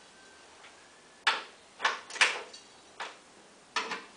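A ratchet wrench clicking in about five short strokes, a second or so in and through to the end, as the lawnmower's engine mounting bolts are checked for tightness.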